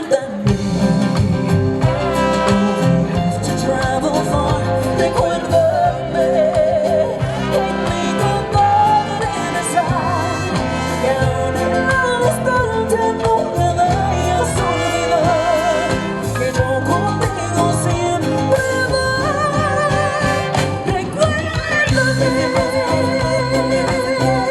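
Live band music with a singer: a steady beat under a wavering sung melody, played continuously.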